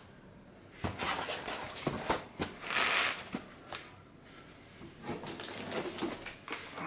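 White polyethylene foam packing blocks being lifted out of a box, rubbed together and set down in a stack: rustling and scraping with light knocks, the loudest scrape about three seconds in.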